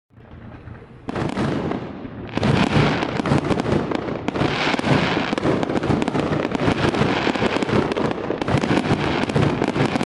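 Aerial fireworks going off: a dense run of rapid bangs, pops and crackling that fades in at the start and grows louder about two seconds in.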